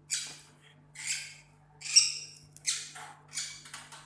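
Lovebird giving a run of harsh, shrill squawks, about six in four seconds.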